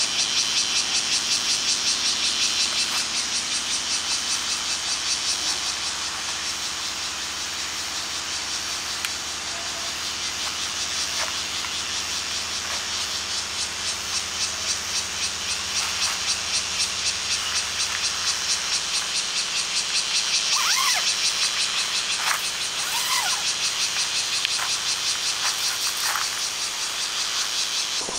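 Chorus of cicadas buzzing in a steady, rapidly pulsing high-pitched drone. A bird chirps a few times about three-quarters of the way through.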